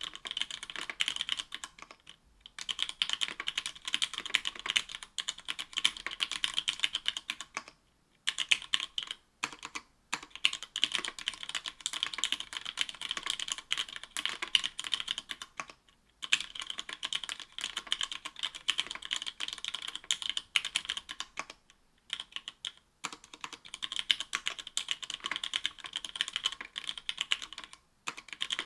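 Fast typing on a mechanical keyboard with stock Cherry MX Black linear switches (60 g), an aluminium plate and GMK keycaps. Runs of dense key clacks last several seconds, broken by brief pauses about every six seconds.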